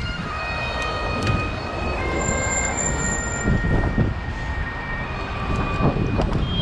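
Wind rushing over the microphone with road and traffic noise while a bicycle is ridden through city traffic, with a few thin, steady high whining tones on top.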